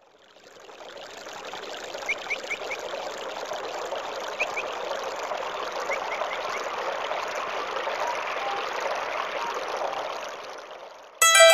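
Steady rush of running water, like a small stream, fading in over the first second, with a few short high bird chirps in quick runs of three or four. Keyboard music cuts in abruptly just before the end.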